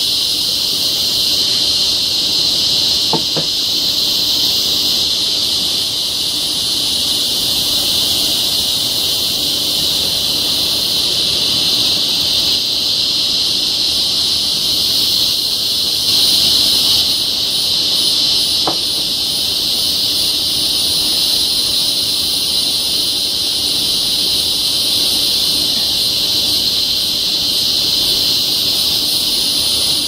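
Cicadas calling in a loud, steady, high-pitched chorus that does not let up.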